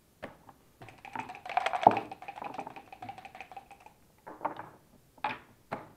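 Backgammon dice rattling fast in a cup for about three seconds, with a sharp clack as they land on the board, then three separate clicks of checkers being set down on the board.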